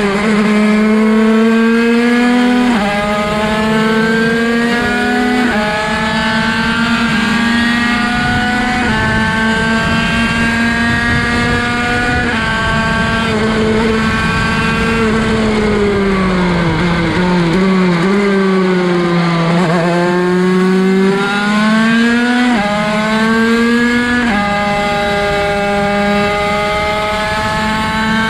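Derbi 50cc two-stroke race engine with a Bidalot cylinder, heard from onboard at full throttle: a high, buzzing note climbs through four quick upshifts, each one a sudden drop in pitch, in the first dozen seconds. The pitch then falls away as the bike slows for a corner, and climbs again through two more upshifts.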